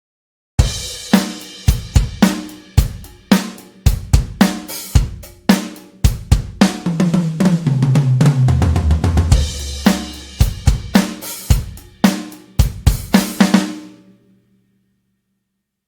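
Toontrack EZdrummer 3 sampled acoustic drum kit playing a groove of kick, snare, hi-hat and cymbals, with a tom fill falling in pitch in the middle. The pattern stops near the end, and the last hit rings out briefly.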